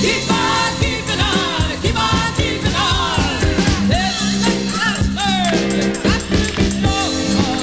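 Funk-soul 45 record playing: sung lead vocals with backing voices over a band with held chords and a steady drum beat.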